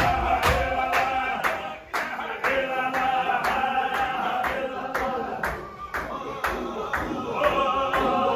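Men's voices chanting together in a Chechen Qadiri zikr, over a steady beat of hand claps about twice a second.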